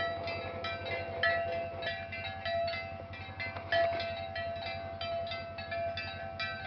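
Cowbells on a walking herd clanking irregularly, a few ringing strikes each second, over a steady low hum.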